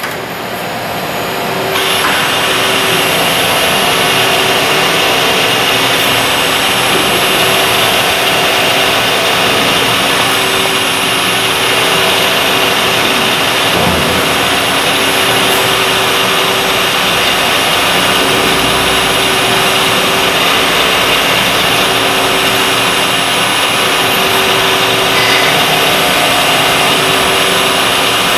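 Miyano ANX-42SYY CNC turning center running a machining cycle: a steady mechanical whine and hiss of spindle, cutting and coolant, with a low hum and a high tone, swelling up over the first two seconds.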